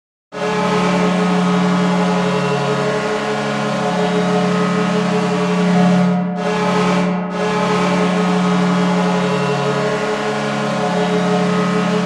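Ice hockey arena goal horn blowing one long, loud blast: a chord of several low steady tones held for about eleven seconds, starting a moment in.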